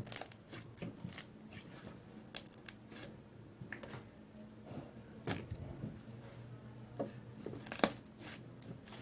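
A large batch of slime being kneaded and stretched by hand, giving off irregular sticky clicks and pops, with one sharp pop near the end.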